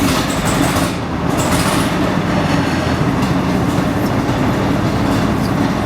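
Pz.Kpfw. IV Ausf. G tank's Maybach HL 120 V12 petrol engine running loudly with a rapid low firing beat. It comes up to full level right at the start, just after starting, then runs steadily.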